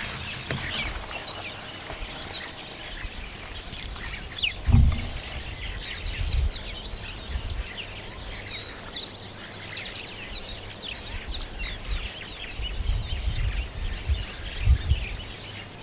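Many small birds chirping and trilling in quick, overlapping calls, with irregular low rumbling bumps underneath, the loudest about five seconds in.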